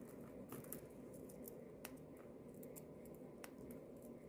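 Faint, irregular clicks and light handling noise of Arduino jumper wires being peeled apart from their ribbon by hand, over a low steady room hum.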